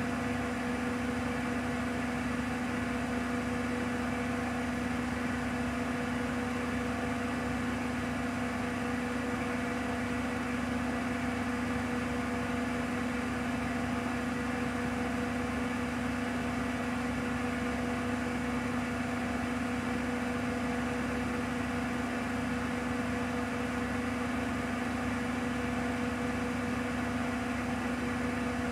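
Bosch WAQ28470GB washing machine spinning its empty drum at full 1400 rpm speed: a steady, unchanging whine over an even rush, with no rise or fall in pitch.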